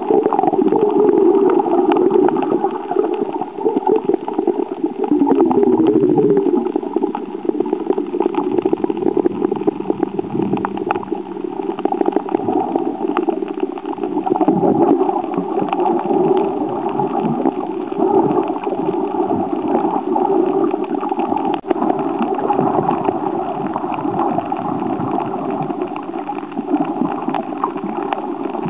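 Water sloshing and gurgling around a camera filming underwater while snorkelling, a steady, continuous wash of water noise.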